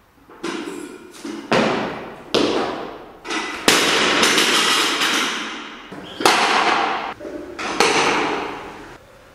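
Loaded Olympic barbell with bumper plates dropped onto a lifting platform, bouncing and clattering through a series of about eight bangs, each ringing out before the next, then settling shortly before the end.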